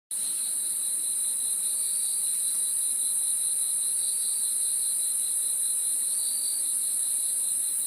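Insect chorus chirping steadily: a continuous high-pitched buzzing trill with a lower, pulsing trill beneath it.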